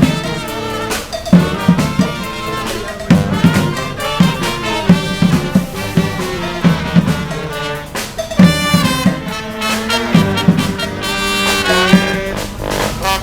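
A street brass band playing live: trumpets and trombones over a steady drum beat.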